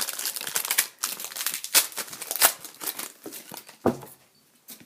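Wrapper of a 2013-14 Panini Select Hockey card pack crinkling and tearing as it is opened by hand, in dense crackles that die down about four seconds in.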